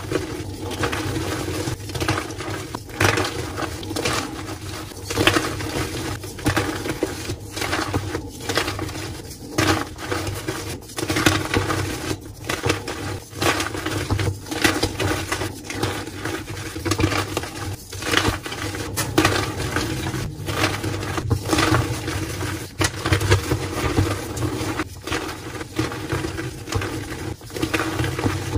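Gym chalk blocks being crushed and crumbled by hand, a continuous irregular crunching and crackling as pieces and powder break apart and fall onto a pile, over a steady low hum.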